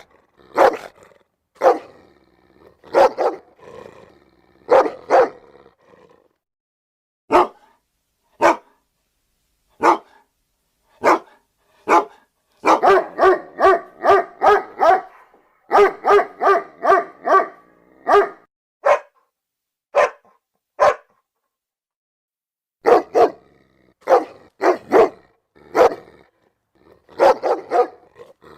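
Dog barking in short separate barks, mostly about a second apart, with a fast run of barks in the middle and a pause of about two seconds near the end.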